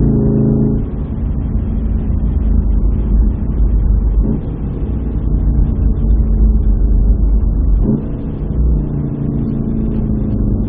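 Volkswagen Golf VII R's turbocharged 2.0-litre four-cylinder engine heard from the moving car, under a heavy low rumble, with two brief changes in pitch about four and eight seconds in.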